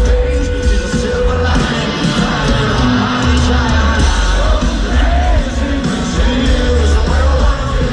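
Loud live rock band playing, with singing and shouting over heavy bass; a sung note is held near the start.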